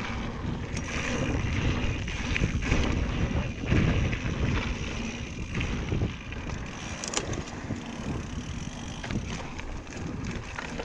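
Mountain bike rolling along a dirt singletrack, with wind buffeting the microphone and a constant rumble of tyres on the trail. Short clicks and rattles from the bike come through over bumps.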